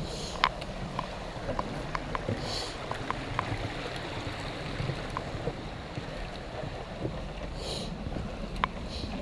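Footsteps of a hiker crossing a wooden plank footbridge, then walking on a leaf-covered rocky trail: scattered light steps and crunches over a steady rushing hiss.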